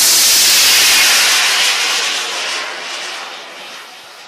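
Hybrid rocket motor firing at launch: a loud, steady rushing noise that fades steadily after about a second and a half as the rocket climbs away.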